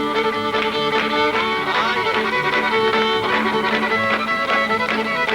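Fiddle playing a fast old-time breakdown over a steady rhythm from a country band backing.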